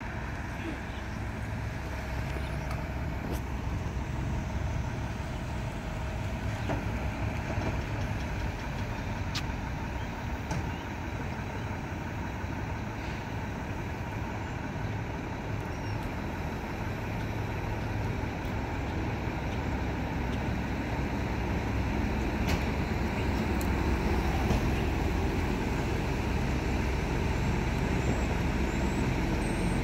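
Diesel engine of a Mack MRU front-loader garbage truck running as the truck drives closer, a steady low rumble that slowly grows louder.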